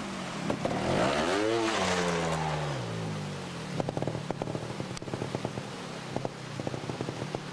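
Trials motorcycle engine revved hard, its pitch climbing and then falling away over a couple of seconds. It then runs lower, with a run of sharp irregular clicks and knocks from about halfway through.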